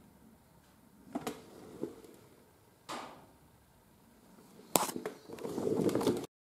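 Handling noise on a handheld camera's microphone. There are a few light clicks and knocks and a soft rustle, then a sharp knock about five seconds in, followed by a second of rubbing and rustling. The sound cuts off abruptly near the end as the recording stops.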